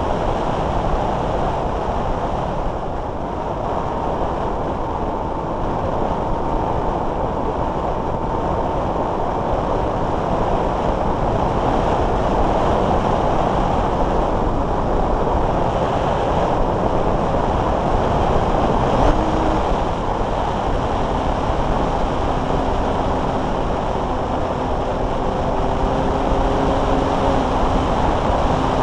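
Airflow rushing over a keychain camera mounted on a Multiplex Blizzard RC hotliner in flight: a loud, steady wind noise, with a faint thin whine in the first part and lower faint tones in the last few seconds.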